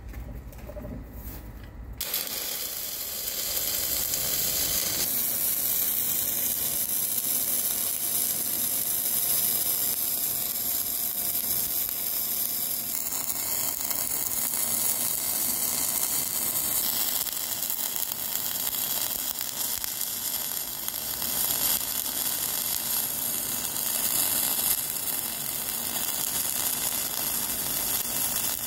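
Electric arc welding on steel, starting about two seconds in: a steady, even hiss that changes abruptly a few times.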